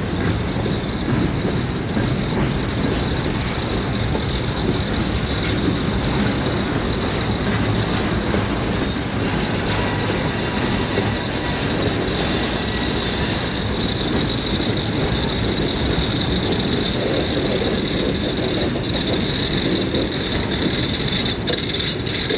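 Freight train of loaded hopper cars rolling past at close range: a steady rumble and rattle of steel wheels on rail, with a high wheel squeal that grows stronger about halfway through.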